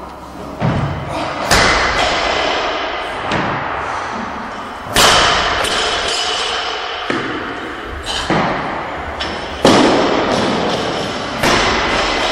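Loaded Olympic barbells with bumper plates dropped after lifts: several heavy thuds a second or two apart, each followed by ringing and echo in a large hall.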